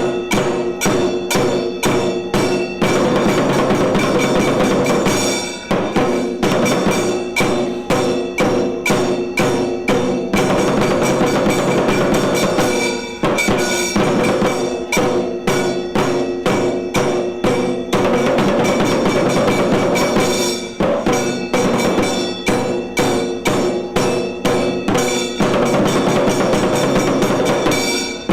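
Tiru Kailaya Vadyam temple percussion ensemble playing: fast, dense strokes with ringing tones held over them, the pattern easing briefly about every seven to eight seconds before coming back in.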